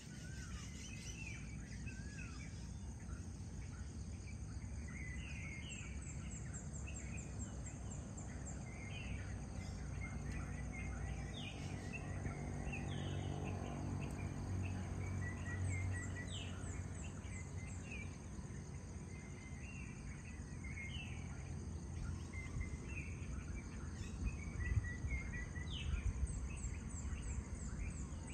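Many birds chirping with short calls, over a high insect trill that comes in repeated runs and a steady low rumble. A low hum swells and fades around the middle.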